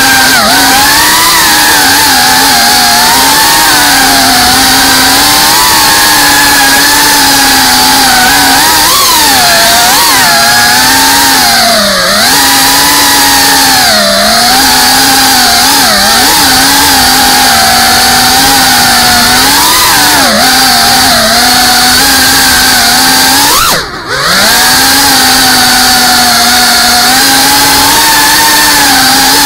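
FPV quadcopter's brushless motors and propellers, heard from the onboard camera as a loud buzzing whine whose pitch rises and falls continually with the throttle. About four-fifths of the way through, the sound briefly drops and falls in pitch, then climbs back.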